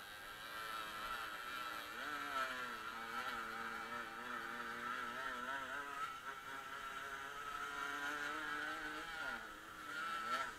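Small off-road motorcycle engine running under throttle: its pitch rises about two seconds in, wavers up and down as the bike rides the dirt track, and drops near the end as it slows, over a steady high whine.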